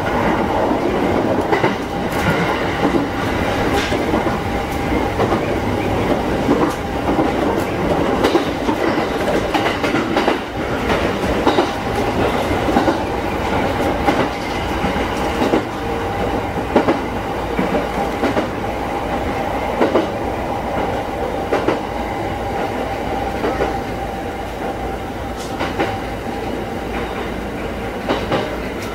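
JR East E231-series electric commuter train running along the rails, heard from inside the driver's cab: a steady rumble with a faint steady tone, and irregular sharp clicks as the wheels pass over rail joints and points. It eases off a little near the end as the train pulls into a station.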